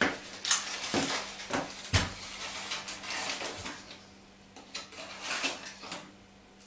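A sugar container is being opened and handled: crinkly rustling and a few sharp clicks and taps, as from a spoon or lid. The sharpest taps come in the first two seconds, and a little more rustling follows near the end.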